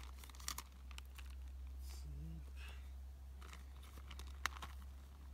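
Plastic wrapping crinkling and rustling, with a few sharp clicks, as a new chainsaw chain is taken out of its packaging and handled.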